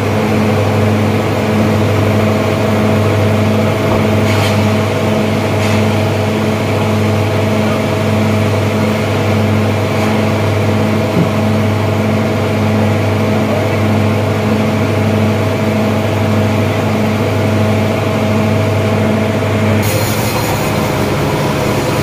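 Sawmill's stationary engine running steadily: a loud, continuous hum with a faint regular pulse and no cutting strain. Near the end the tone shifts slightly and a high hiss joins.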